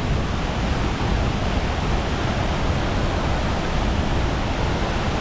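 A large waterfall: the steady, unbroken rush of a great volume of falling water.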